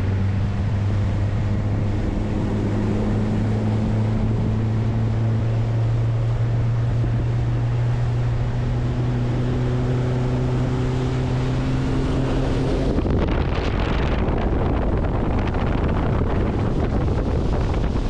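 Boat engine running under way, its pitch creeping slowly upward, with wind on the microphone. About 13 seconds in, the engine sound stops and only wind noise and water remain.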